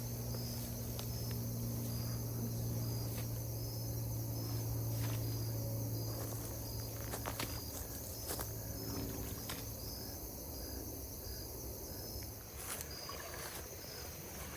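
Crickets and other insects chirping steadily in the evening, with a steady low hum underneath that fades out near the end and a few faint clicks.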